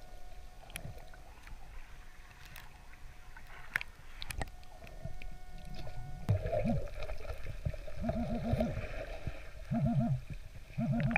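Muffled underwater sounds: a few sharp knocks, then from about six seconds in a rapid pulsing buzz in short repeated runs. The buzz fits a pinpointer probe signalling a metal target in the sand.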